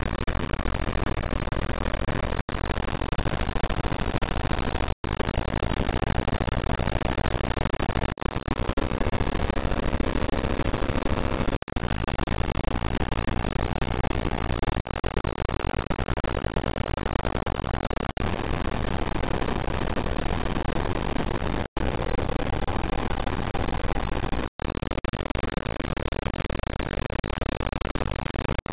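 Dense, harsh noise from a DAW playing a loop only a few milliseconds long over several layered audio tracks. It runs continuously, with brief dropouts about every three seconds, and its character shifts after each one.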